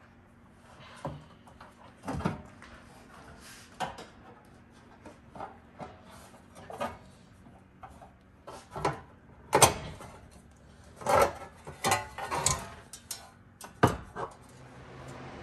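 Parts of an AEM cold air intake being handled and fitted into a car's engine bay: irregular clicks, knocks and clatters of parts being pushed into place, coming in a busier, louder flurry over the last few seconds.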